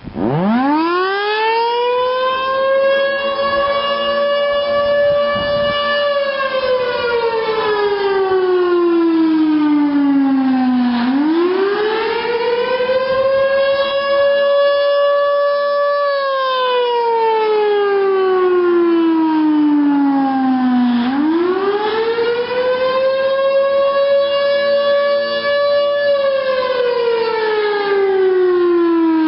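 Federal Signal Thunderbolt 1000 outdoor warning siren winding up from silence and then wailing. Its single tone climbs, holds for a few seconds, then slides down before climbing again, in a cycle of about ten seconds.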